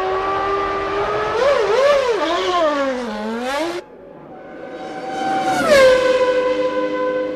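Formula One race car engines at high revs. One engine note swoops up and down through throttle changes and cuts off sharply about four seconds in. Then another car's engine swells to its loudest and drops in pitch as it passes close.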